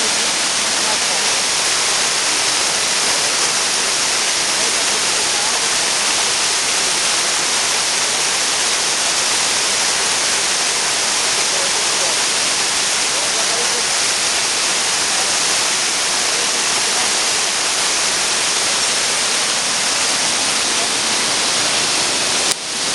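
Waterfall rushing in a loud, steady roar of falling water, with a brief drop just before the end.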